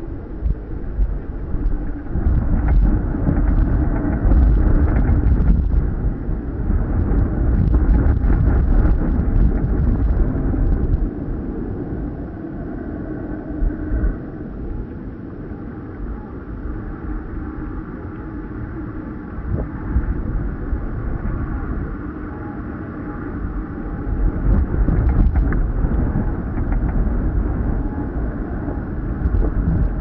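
Strong wind buffeting the microphone with a low rumble over the rush of choppy sea. It comes in gusts: louder for several seconds near the start and again near the end.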